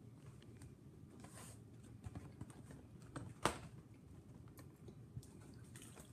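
Faint crunching and clicking of a crisp Bretons original cracker being bitten and chewed, with one sharper crack about halfway through.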